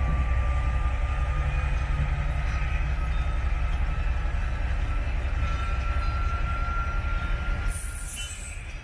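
Diesel locomotive engine working hard as it pulls passenger coaches away, a steady deep rumble with a faint high whine rising slowly above it. The rumble gets quieter near the end as the train draws off.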